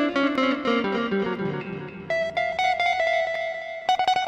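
Electric guitar played through a Zoom G1X ON multi-effects pedal set for a chicha tone: a quick descending run of single notes, then the same note picked over and over, stepping up to a higher note near the end.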